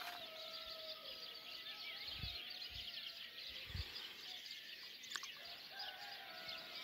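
Faint dawn chorus: many small songbirds chirping and singing at once, with drawn-out rooster crows in the distance near the start and again near the end.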